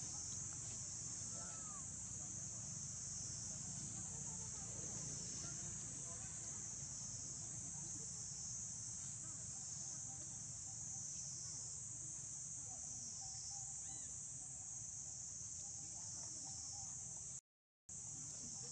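Steady, high-pitched chorus of insects over a low, even rumble; the sound cuts out for a moment near the end.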